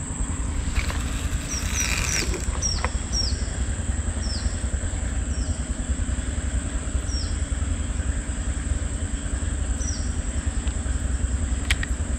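A steady low rumble under a steady high insect drone, with a bird giving about a dozen short descending whistle notes, quick at first and then further apart. There is a brief rustle of cloth handling about a second in.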